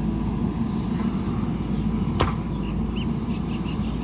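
JCB 3DX backhoe loader's diesel engine running steadily at work, with a single sharp knock about two seconds in.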